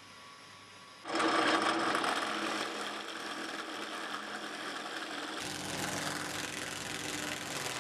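Quiet for about a second, then a drill press starts boring into an olive-wood toy block with a wide flat bit, running steadily. A little past halfway it cuts to a different steady machine sound with more low end: an electric motor spinning a sanding drum as a small wooden piece is held against it.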